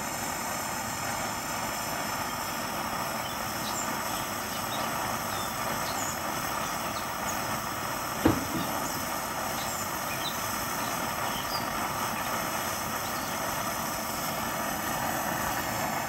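Coleman 530 Fireball pressurized gasoline stove burning steadily under a kettle: an even rushing hiss from the burner, with faint high ticks scattered through it. A single sharp knock about halfway through.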